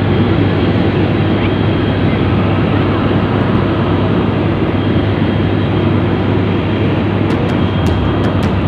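Helicopter in flight heard from inside the cabin: a loud, steady drone of engine and rotor with a deep hum underneath. A few light clicks near the end.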